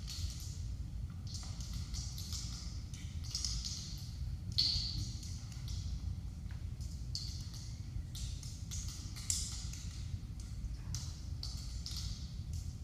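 Bare feet brushing, sliding and stepping on a wooden floor: short irregular swishes every second or so over a steady low hum.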